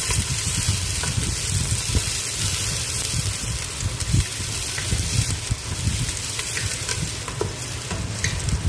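Sliced onions sizzling in hot oil in a stainless steel pot while being stirred with a spoon, with scattered light knocks of the spoon against the pot; the onions are being fried until brown.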